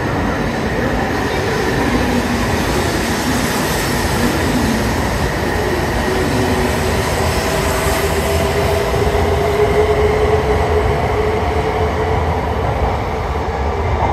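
E2 series Shinkansen electric train moving off along the platform, gathering speed. A steady rumble of wheels and running gear, with a motor whine that climbs slowly in pitch.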